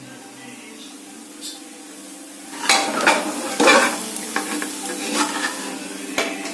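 Chicken curry being stirred and scraped in a pan of sizzling spice paste, several strokes starting about two and a half seconds in, over a steady sizzle.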